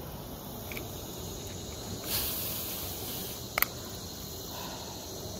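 Steady high-pitched chorus of insects such as crickets. A brief rustle comes about two seconds in and a single sharp click about a second and a half later.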